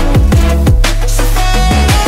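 Background music: an instrumental stretch of an electronic pop song, with deep bass notes that slide downward and held synth tones.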